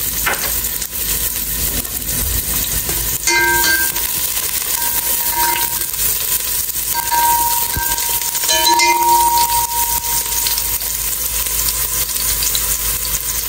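Minced garlic and shallots sizzling in hot cooking oil in a stainless steel stockpot, stirred with wooden chopsticks as the aromatics fry until fragrant. Short ringing tones come about three seconds in and again around nine seconds.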